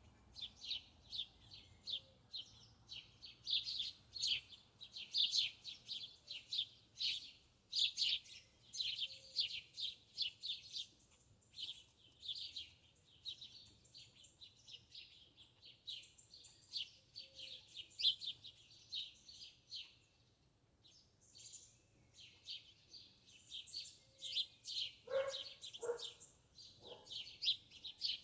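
Small birds chirping and twittering in quick, overlapping high notes, with a brief lull about two-thirds of the way through. Near the end a few short, lower-pitched calls cut in.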